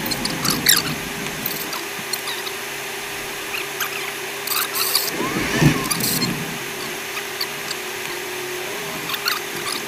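Cabin noise of a 4x4 driving over sand dunes: a steady hum with many short squeaks and creaks from the interior.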